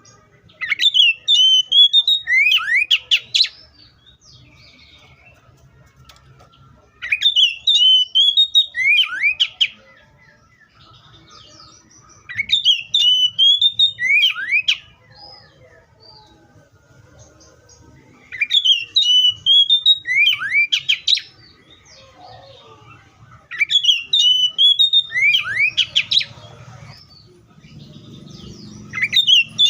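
Oriental magpie-robin singing, repeating the same short phrase about every five to six seconds. Each phrase is a rising and falling warble followed by a run of quick downward-sweeping whistles.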